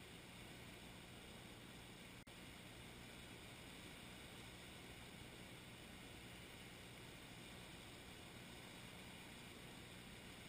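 Near silence: a steady, faint hiss with one brief dropout about two seconds in.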